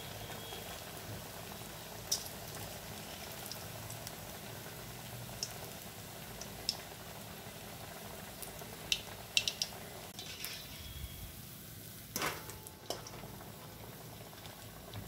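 A breaded potato-and-vegetable tikki deep-frying in hot oil in a steel kadai: a steady bubbling sizzle. A few short sharp clicks and knocks sound over it, the loudest about twelve seconds in.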